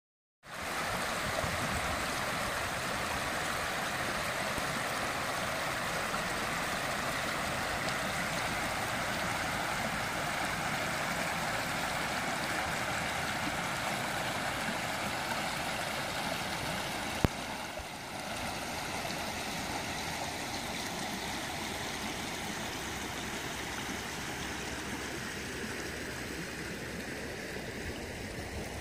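Muddy floodwater rushing steadily over a washed-out earth bank, with one sharp click a little past halfway.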